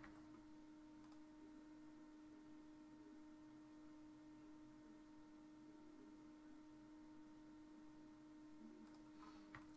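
Near silence: room tone with a faint, steady hum at one constant pitch.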